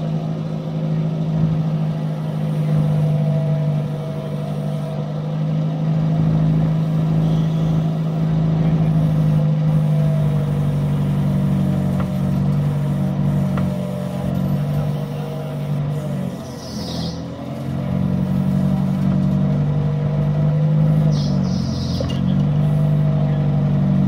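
Jeep Willys backhoe's engine running steadily as the backhoe digs, its pitch sagging briefly twice in the second half as it takes up load.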